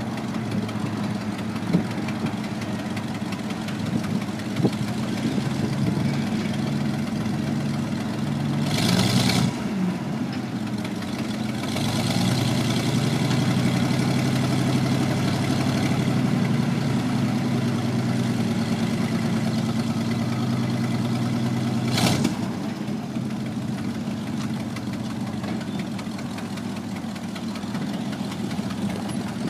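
Ford engine of a 1979 Champion Spotter yard truck idling steadily. A short hiss comes about nine seconds in, and the engine runs louder from about twelve seconds in until a sharp knock at about twenty-two seconds, after which it settles back to idle.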